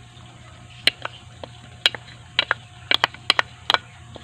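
A spoon clicking and clinking against a bowl as ingredients are added to a marinade: about ten sharp clicks at uneven intervals, several in quick pairs, over a low steady hum.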